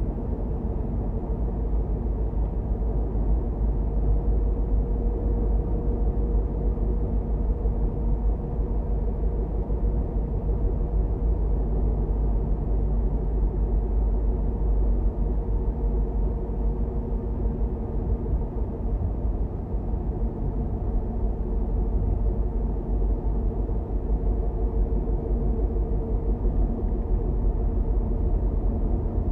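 Car driving along: a steady, low rumble of road and engine noise with a faint steady hum above it.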